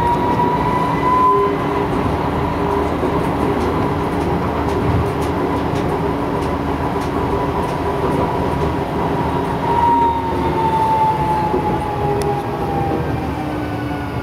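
NGT D8DD low-floor tram running along street track, heard from the driver's cab: a rumble of the running gear under an electric traction-motor whine that rises slightly in pitch at first, holds steady, then falls from about ten seconds in as the tram slows.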